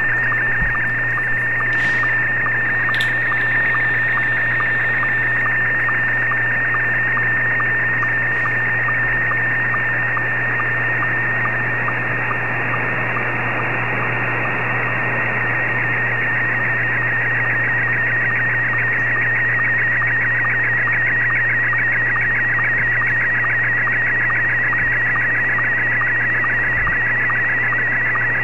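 Slow-scan TV picture signal in Scottie 1 mode, received on the 20-metre amateur band through a shortwave SDR in single sideband: a wavering tone near 2 kHz over band-limited static hiss, with a short lower sync blip about twice a second as each image line is sent.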